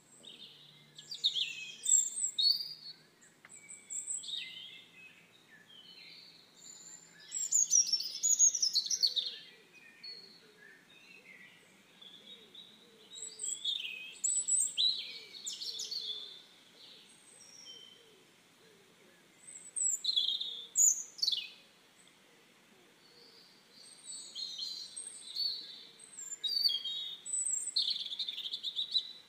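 Wild songbirds singing and chirping: varied high, short phrases and trills that come in clusters every few seconds, with quiet gaps between.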